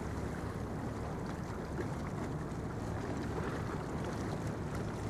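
Steady low rumbling background noise with no distinct events, of the kind wind or passing traffic makes.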